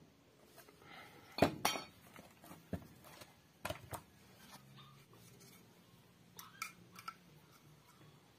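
Small metal chainsaw parts and hand tools clinking and knocking as they are picked up and handled during reassembly: a handful of sharp separate clinks, the loudest about a second and a half in.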